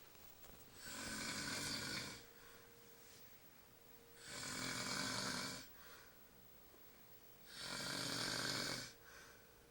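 A sleeping man snoring: three long snores about three and a half seconds apart, with quiet breathing between them.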